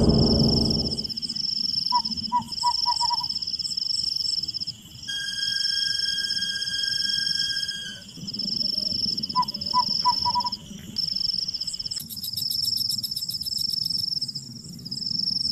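Forest ambience: insects keep up a high-pitched buzzing drone in repeated phrases of about two seconds over a low rumble. Twice a bird calls in a quick run of four or five short notes. A faster insect trill joins near the end.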